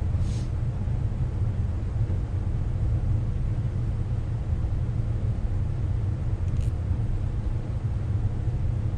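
Steady low rumble, with two faint, brief metallic clinks from brake parts being handled: one right at the start and another about six and a half seconds in.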